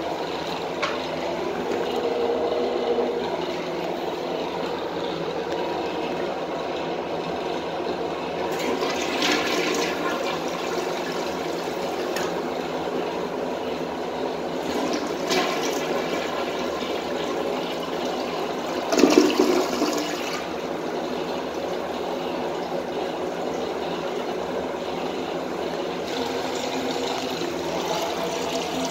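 A 2004 Mansfield Alto toilet flushing: water rushes into and swirls down the bowl, with a louder surge about two-thirds of the way through. Then the tank refills through its fill valve with a steady running hiss.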